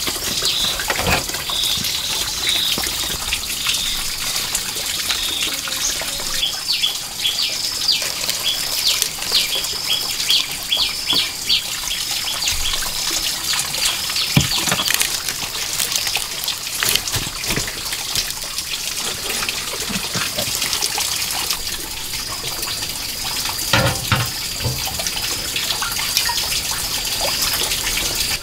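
Running water with a steady rushing hiss, overlaid by a run of short, high, repeated chirping calls and a few scattered knocks.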